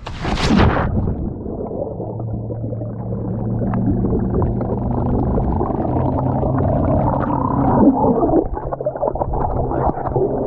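A splash as the camera goes into the sea, then muffled underwater sound: a steady low hum with irregular bubbling and gurgling.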